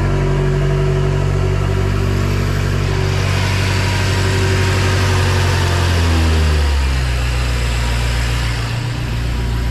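BMW M5 F10's 4.4-litre twin-turbo V8 idling on its first run after an alternator and belt replacement. The idle speed drops about six seconds in, then holds steady.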